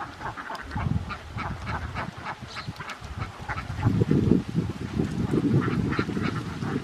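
A large flock of domestic ducks quacking, many short calls overlapping. A low rumble under the calls grows louder about four seconds in.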